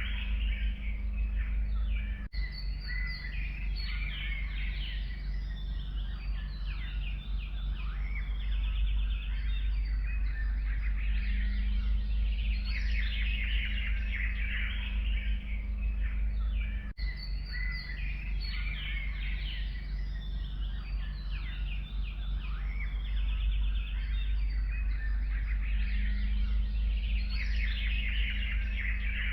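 Dense chorus of many forest songbirds chirping and singing over a steady low rumble. The track is a loop: brief dropouts about two seconds in and again about halfway through, after which the same birdsong repeats.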